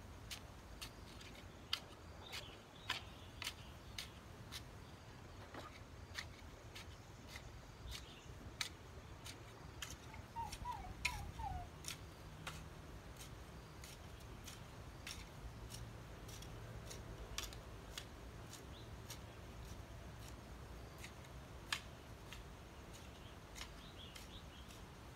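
Garden hoe chopping into soil: sharp, irregular strikes about one or two a second, thinning out in the second half. A bird gives a short run of falling chirps near the middle.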